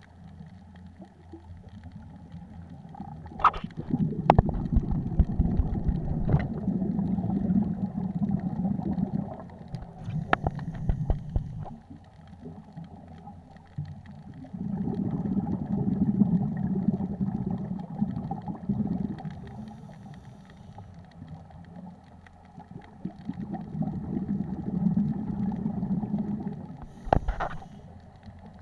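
Scuba diver's regulator breathing heard underwater: exhaled bubbles rumbling low in three long bursts of several seconds, with quieter gaps between them. A few sharp knocks sound between the breaths.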